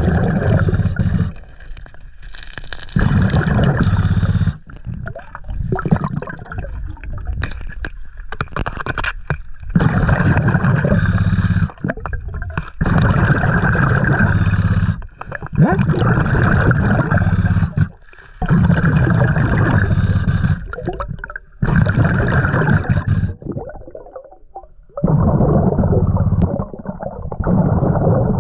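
Underwater: a diver's exhaled air bubbling and gurgling past the microphone in repeated bursts of one to three seconds, with quieter gaps between breaths.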